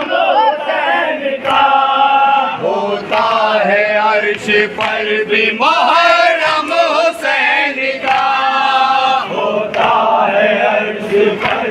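Men's voices chanting a Shia mourning lament (nauha) together, with long held notes.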